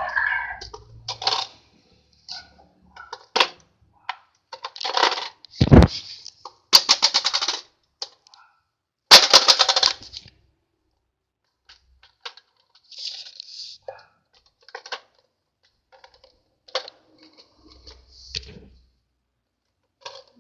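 Plastic Hess toy truck being handled and set down on a tile floor: scattered clicks and knocks with short rattling bursts, the heaviest knock about six seconds in and the loudest rattle about three seconds later.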